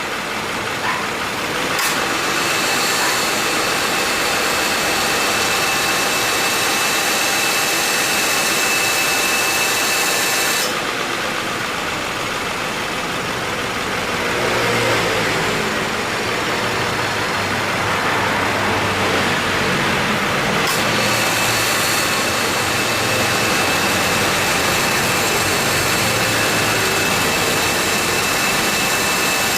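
2014 Subaru Forester idling with its A/C compressor cycling on and off: a click about two seconds in as the clutch engages, then a steady whine and hiss while it runs, cutting out abruptly about a third of the way through and clicking back in about two-thirds through. The compressor, which had seized and was kept in service with additive oil rather than replaced, still makes an intermittent abnormal noise.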